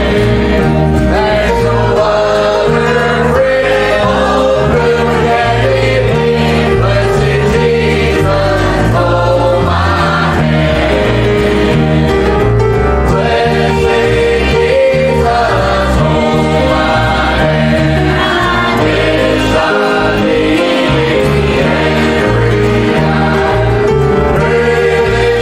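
Choir or congregation singing a gospel hymn with instrumental accompaniment and a moving bass line.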